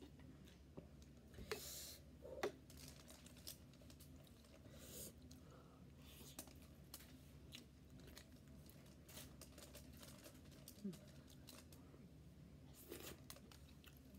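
Faint close-up eating sounds: chewing and wet mouth clicks while eating stewed conch and rice by hand, with scattered small clicks and a few brief crinkles of fingers working the food on an aluminium foil tray.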